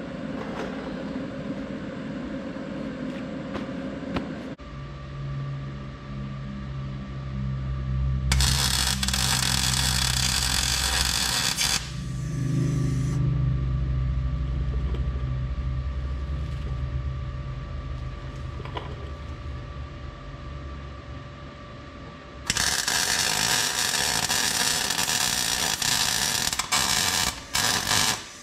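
MIG welding a steel bracket: the arc crackles and hisses in two runs, a short bead about eight seconds in and a longer one from about 22 seconds that stops and restarts a few times near the end. Between the runs there is a steady low hum.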